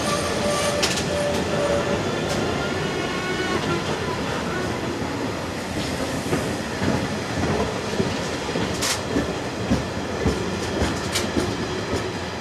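Freight train wagons rolling past at speed: a steady rumble with wheels clacking over the rail joints. A thin whine fades out about two seconds in, and sharp knocks come now and then in the second half.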